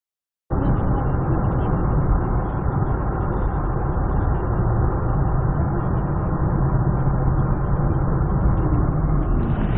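Steady rumble of a moving vehicle's road and engine noise, picked up by a dashcam's microphone, starting suddenly about half a second in.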